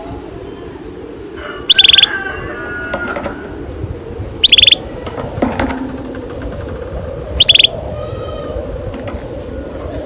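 Canary chirping: a loud, short, high chirp repeats three times about three seconds apart, with fainter trills between them over a steady low background noise.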